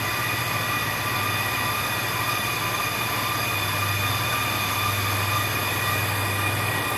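Brake lathe running in the background while it resurfaces a brake rotor: a steady hum with several steady high-pitched tones over it.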